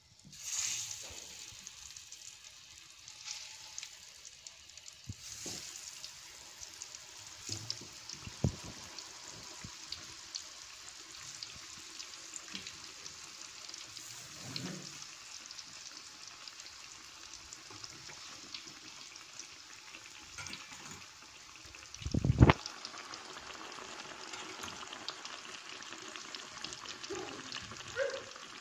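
Peeled bananas frying in hot oil in a wok: a steady crackling sizzle with scattered pops. It surges at the start as more bananas go into the oil. A single loud, low thump comes about three quarters of the way through.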